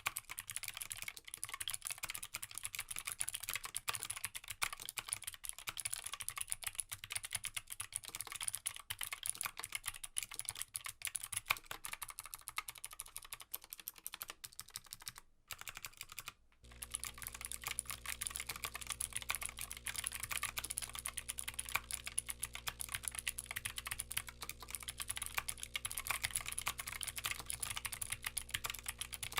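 Fast typing on a mechanical keyboard with Gateron Blue clicky switches, a dense stream of sharp clicks. After a brief break a little past halfway, a steady low hum with several fixed tones joins the typing: the keyboard's built-in air blower running.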